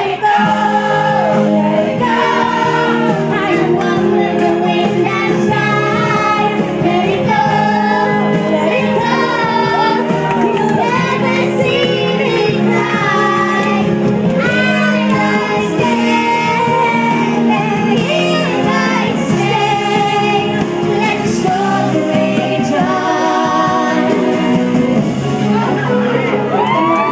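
A five-year-old girl singing through a handheld microphone and PA over backing music.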